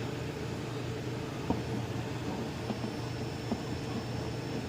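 Steady mechanical hum from a running machine, with a few faint ticks scattered through it.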